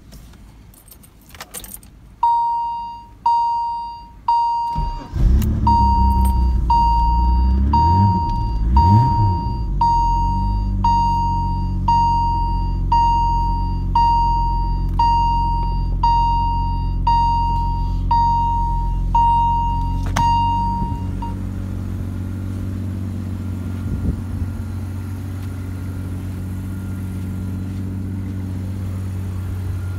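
1986 BMW E30 325es's 2.7-litre straight-six cold-starting at −8 °C. It catches about five seconds in, is revved briefly a couple of times, then settles into a steady idle. The car's warning chime dings about once a second over the first twenty seconds, then stops.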